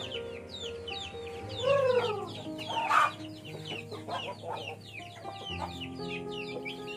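Native chickens clucking and calling around the feed bucket, with many quick high chirps throughout, one longer rising-and-falling call about two seconds in and a sharp loud squawk about three seconds in. Background music with held notes plays underneath.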